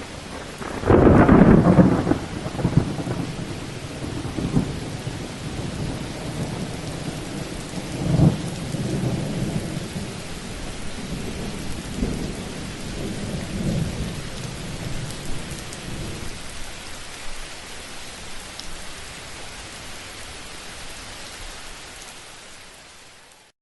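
Thunderstorm: a loud thunderclap about a second in, with rolling rumbles of thunder returning twice further on, over a steady hiss of rain. It all fades out near the end.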